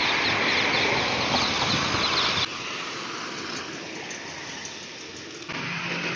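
A dense rushing flutter of many pigeons' wings as a flock flies, cutting off abruptly about two and a half seconds in to a quieter outdoor background. Near the end a louder busy background with a low steady hum comes in.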